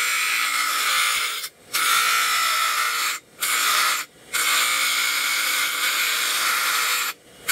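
Bench grinder wheel grinding the edge of a flat metal plate, a loud, harsh hiss, to weaken it so it can be bent and snapped apart. The sound cuts out briefly about four times.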